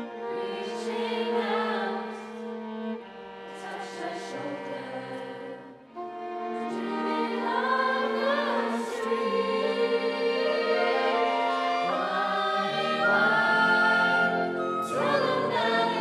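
Mixed-voice choir singing long held chords without words, with a bowed string ensemble including violin, briefly dropping away about six seconds in, then returning fuller and louder.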